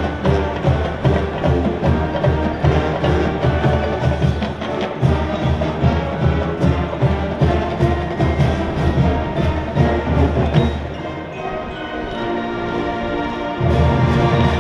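A marching band playing: brass over a steady drum beat. About eleven seconds in, the drums drop out under held brass chords, and the drums come back in near the end.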